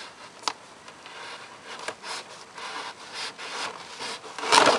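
Scissors blade scraping along the edge of a cardboard box, slicing through the adhesive security seal, with a click about half a second in and a louder scrape near the end.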